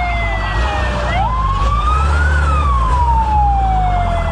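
Fire truck siren wailing: the pitch jumps up, climbs slowly, then falls slowly, repeating about every three and a half seconds, over a steady low rumble.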